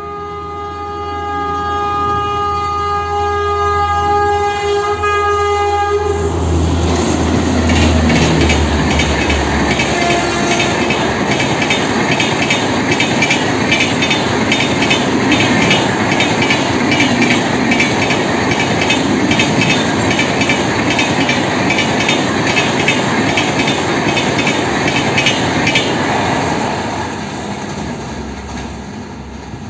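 Express passenger train passing at speed. The locomotive sounds one long horn blast of about six seconds as it comes in, then the coaches rush past with a fast, steady clickety-clack of wheels on the track, fading away near the end.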